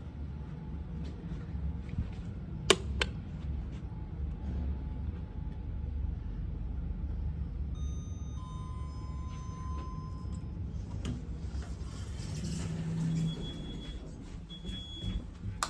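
Otis 2000 lift car in motion: a steady low hum, with two sharp clicks about three seconds in and a short cluster of electronic tones about halfway through. Near the end, doors sliding with three short high beeps.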